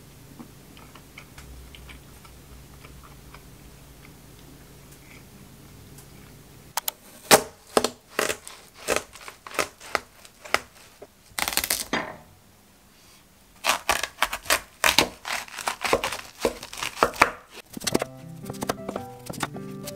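A kitchen knife cuts through a whole watermelon on a wooden cutting board: sharp crisp cracks and crunches as the blade goes through the rind, a longer tearing crack as the melon splits open, then a quick run of slicing strokes. Quiet room tone comes before the cutting, and background music comes in near the end.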